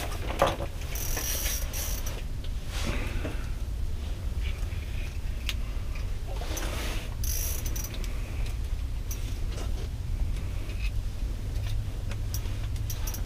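Small spinning reel on light panfish gear being cranked in short spells, a scratchy mechanical clicking that comes and goes, as a northern pike is played on the line. A steady low rumble runs underneath.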